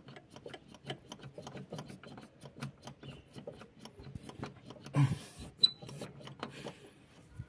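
Hand primer pump on a Hyundai Galloper's diesel fuel filter being worked by hand: a run of quick, faint clicks and rubbing, several a second, with a louder knock about five seconds in. The pumping bleeds out air that got into the fuel system, which the owner puts down to running out of diesel.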